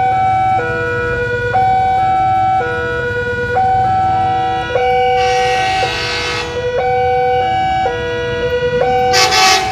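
Two-tone electronic warning alarm, a high and a low tone taking turns about once a second without a break. Two short noisy bursts cut in, one in the middle and one near the end.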